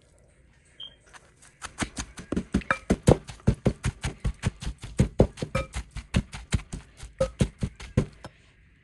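Wooden pestle pounding a moist mash of fried fish, herbs and chili in a metal mortar: a fast, even run of knocks, about five strokes a second, with a faint metallic ring on some strokes. It starts about a second and a half in and stops near the end.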